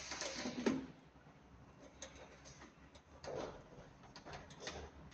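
Faint handling noise: scattered small clicks and knocks of multimeter test probes and cable ends being handled in gloved hands at an electrical box, with a small cluster of clicks near the end.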